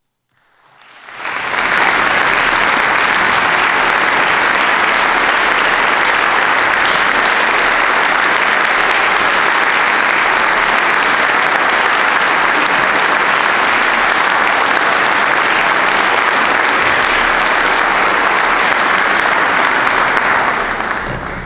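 Large roomful of people applauding, a long sustained ovation: it swells in about a second in, holds steady and dense, and stops near the end.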